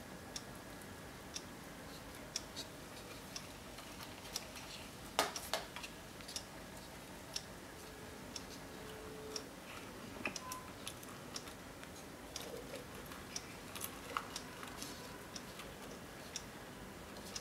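Faint ticking of a quartz clock movement, about once a second, mixed with light irregular clicks and crackles from thin wires being twisted together by hand; the loudest crackle comes about five seconds in.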